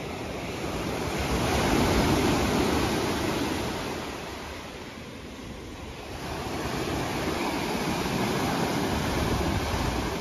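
Lake Michigan waves breaking and washing up a sandy beach: the surf swells to a peak about two seconds in, eases off, then builds again from about six seconds.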